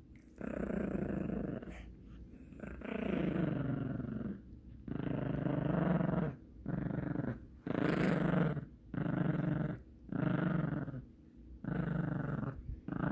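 Yorkshire terrier growling with a plush toy clamped in its mouth as a hand pulls at the toy: possessive, tug-of-war play growling. About eight long growls of a second or so each, with short pauses for breath between them.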